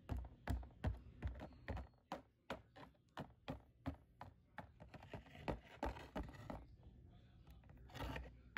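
Plastic toy horse figurines trotted across the floor of a cardboard-box arena, their hooves tapping out a quick, uneven run of light clicks, about three a second, that soften in the second half.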